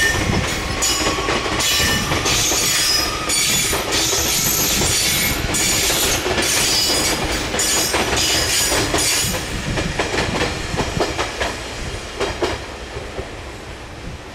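JR East E351 series electric train passing, its wheels squealing with a high, wavering screech over a low rumble. About nine seconds in the squeal stops, and the train fades away with a series of clicks over the rail joints.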